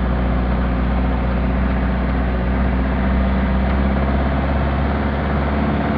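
Car engine running loud and steady with a heavy low drone. Near the end the deepest rumble drops away and the engine note shifts slightly.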